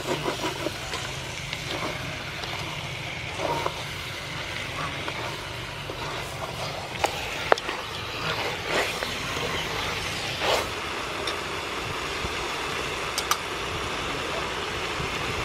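Wooden spatula stirring chicken pieces coated in curry paste in an aluminium pot, with scattered scrapes and knocks against the pot, over a steady low rumble.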